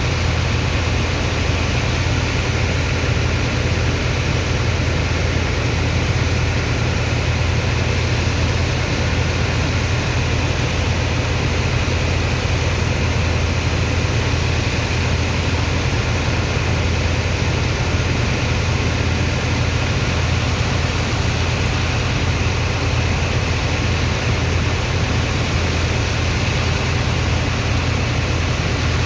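Sand dredger's engine and pump running steadily: an even, deep drone with a constant rushing noise over it, unchanging throughout.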